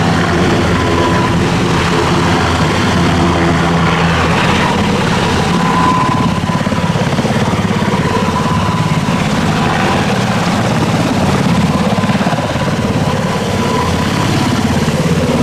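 Sikorsky S-92 twin-turbine search-and-rescue helicopter hovering low on take-off: fast chop of the rotor blades over a steady high turbine whine.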